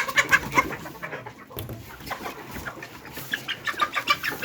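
A flock of young Sasso chickens clucking and chirping over one another in a dense, continuous chatter, busiest near the start and again near the end.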